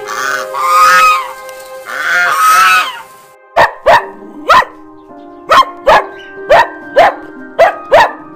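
A few goose honks in the first three seconds, then a dog barking in short, sharp barks, about two a second, over background music.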